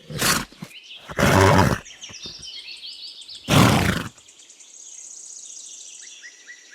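Horse making three loud, rough vocal bursts, with birds chirping faintly behind and a high steady trill near the end.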